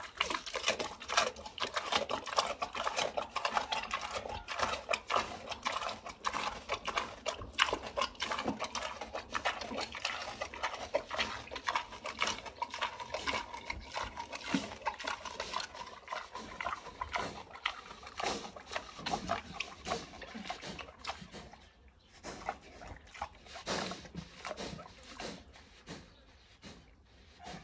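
A pig chewing watermelon with rapid, wet crunching and smacking. The chewing is dense for about twenty seconds and grows sparser near the end.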